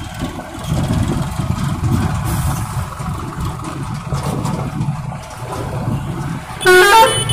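Diesel engine of a heavily loaded Tata truck running as it moves slowly over rough dirt ground. Near the end a vehicle horn plays a quick run of musical notes that rise and fall, the loudest sound.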